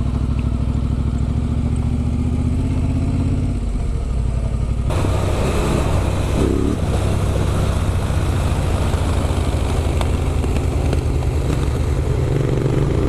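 Adventure motorcycle with an Arrow aftermarket exhaust, engine running steadily. About five seconds in, a loud rushing noise suddenly joins it.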